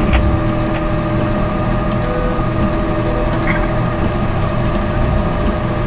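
Aircraft towing tractor's engine running steadily while it tows a Boeing 787-8, heard from the tractor's driving position, with a steady droning hum over a low rumble.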